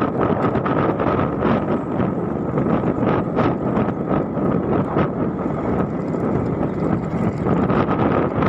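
Wind rushing over the microphone on a moving motor scooter, with the scooter's engine running steadily underneath. The sound stays at an even level, with a thin steady high tone and occasional short knocks.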